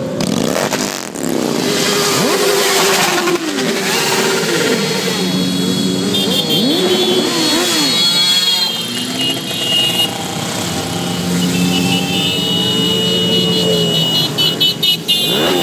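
A stream of motorcycles riding past one after another, their engines revving and rising and falling in pitch as each bike goes by.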